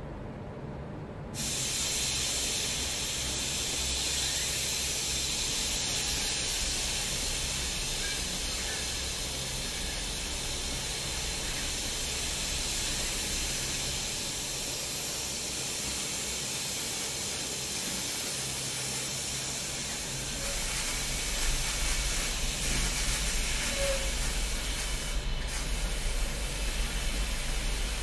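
Steady hiss of robot spray guns coating a car body in a paint booth, starting about a second in. A low rumble joins about two-thirds of the way through.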